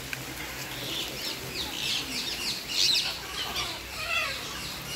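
Birds chirping: many quick, high, sweeping chirps overlapping, loudest about three seconds in.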